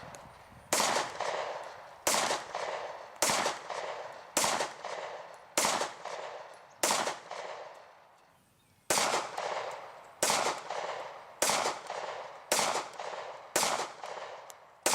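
Kahr CW-series double-action-only pistols firing single shots at a steady pace, about one a second: six shots, a pause of about two seconds, then another string of six. Each shot is a sharp crack that rings out and fades before the next.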